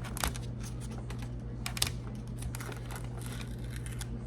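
Light clicking and rustling as refrigerator damper parts are handled, with a sharper click a little under two seconds in, over a steady low hum.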